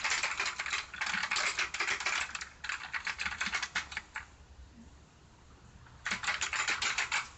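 Fast typing on a Cooler Master Storm QuickFire Rapid mechanical keyboard with clicky Cherry MX Blue switches: quick runs of keystrokes, a pause of nearly two seconds a little past halfway, then more typing.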